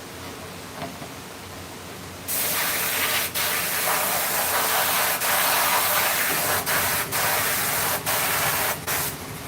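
Compressed air hissing from a nozzle, starting about two seconds in and running in long blasts broken by several short gaps before stopping near the end.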